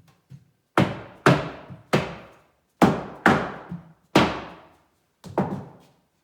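Seven sharp knocks on a wooden cabinet panel, each ringing briefly, as the bottom floor panel is driven into its glued side groove.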